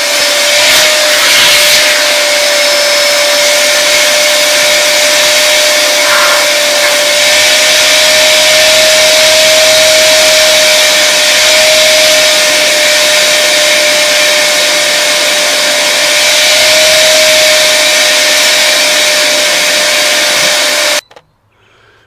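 A Harbor Freight wet/dry shop vac running, sucking limescale sediment out of an electric water heater tank through a narrow homemade aluminum wand. It makes a steady whine over a loud rush of air and cuts off suddenly near the end.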